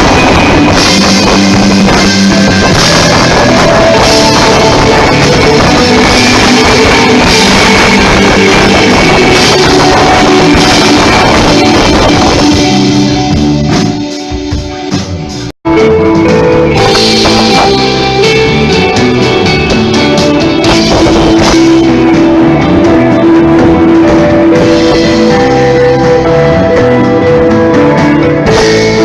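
Live rock band playing loudly on electric guitar, bass guitar and drum kit. The music thins out about halfway through, drops out for an instant, and comes back in full.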